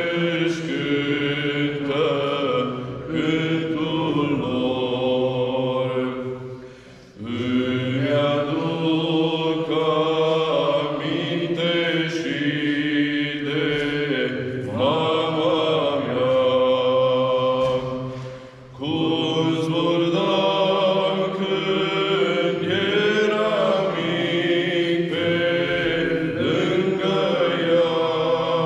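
Two men's voices singing a slow Romanian song unaccompanied, with long-held, gliding notes and brief breaks for breath about 7 and 19 seconds in.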